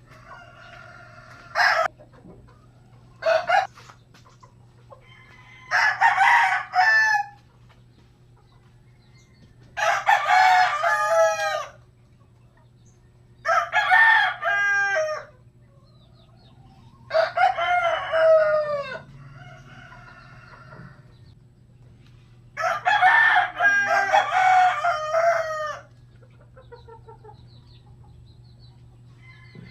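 Rooster crowing repeatedly: about five long crows a few seconds apart, with two short calls near the start.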